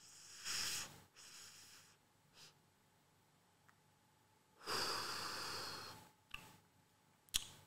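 A man drawing on a joint: a short breathy inhale, then a few seconds later one long, louder exhale of smoke. A couple of short sharp clicks follow near the end.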